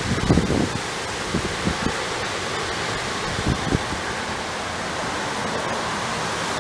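Steady, loud hiss like wind or rushing water, with a few short low bumps in the first two seconds and one more about three and a half seconds in.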